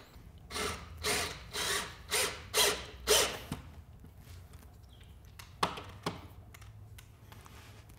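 Cordless drill run in about five short bursts, roughly half a second apart, with its bit pressed into a moose skull. A few sharp clicks and knocks follow.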